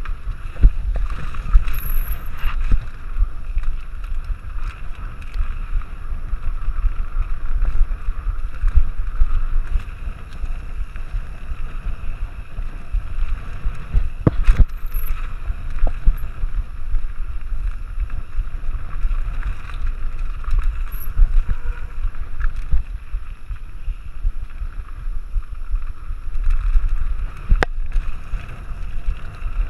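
Mountain bike descending rough dirt singletrack, heard from a rider-mounted camera: constant wind rush over the microphone and tyre rumble, with the bike rattling over the bumps. Two sharp knocks, one about halfway through and one near the end, from hard hits on the trail.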